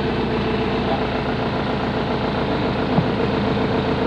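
Hitachi Zaxis 135 excavator's diesel engine idling steadily, with a single short knock about three seconds in.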